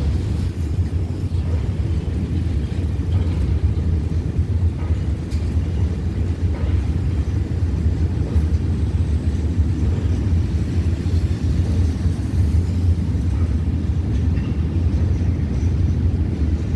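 Loaded ballast hopper wagons of a freight train rolling across a concrete rail bridge: a steady, deep rumble.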